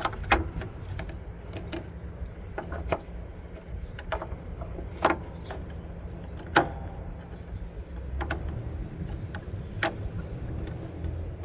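Irregular plastic clicks and light knocks as a turn-signal bulb socket is plugged into a new LED housing and the parts are handled, three of them louder than the rest, over a steady low background rumble.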